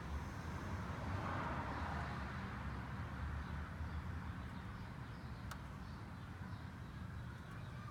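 A single sharp click from under a BMW 328d, about five and a half seconds in, over a steady low hum. It is the intermittent clicking that the owner hears around shutdown and startup and likens to relays or valves.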